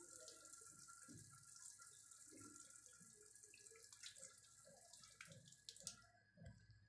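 Near silence: a faint steady hiss that cuts off about six seconds in.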